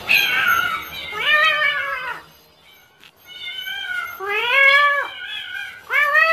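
A series of drawn-out cat-like meows, each rising and then falling in pitch, with short gaps between them.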